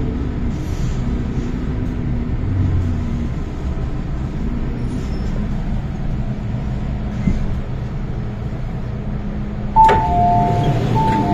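Steady low rumble and hum inside an MTR M-Train car standing at the platform. Near the end a sharp click is followed by the train's two-tone door chime, repeating.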